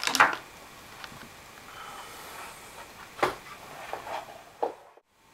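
Handling noise from working inside an open Mac Pro case: a few sharp clicks and knocks, the loudest just after the start and about three seconds in, over faint hiss. The sound drops out to silence for a moment near the end.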